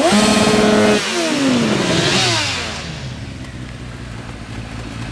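Motorcycle engine revved hard during a tyre-smoke burnout: the pitch sweeps up sharply, holds high for about a second, then falls away as the throttle is released and drops to a lower, rougher running sound.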